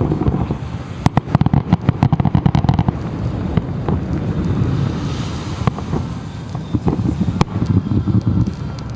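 Fireworks show bursting: a rapid volley of crackling bangs about a second in lasting some two seconds, then scattered single booms over a continuous low rumble.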